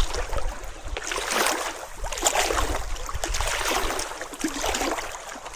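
Irregular splashing and rushing of water, with many short spattering splashes.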